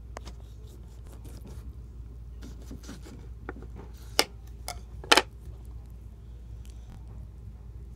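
Knife cutting through a lemon: small wet crackles and ticks as the blade works through rind and flesh, with two sharp clicks about four and five seconds in.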